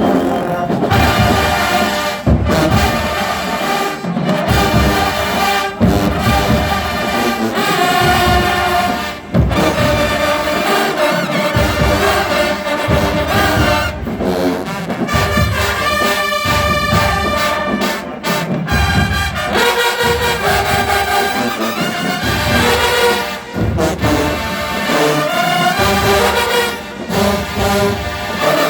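Marching band playing loudly, a brass section carrying the tune over heavy drum hits.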